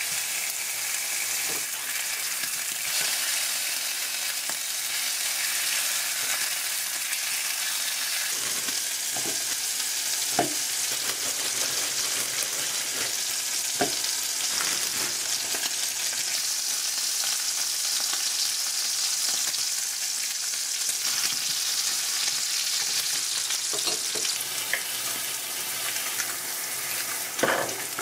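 Pork belly slices sizzling steadily in a frying pan, with a few light knocks and clicks of kitchen utensils.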